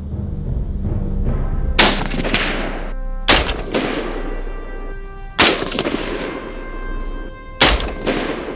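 Four single gunshots, spaced a second and a half to two seconds apart, each followed by a long rolling echo, over background music.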